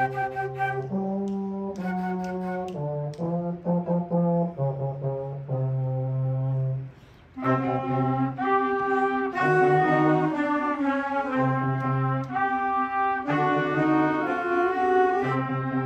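Middle school concert band playing, with woodwinds such as flute and saxophone and brass holding notes over a low sustained bass line. The music breaks off briefly about seven seconds in, and a fuller, louder band passage follows.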